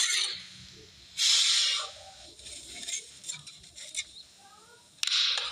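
Two short, loud bursts of hissing noise, the first about a second in and the second near the end, with faint chirps and rustling between them.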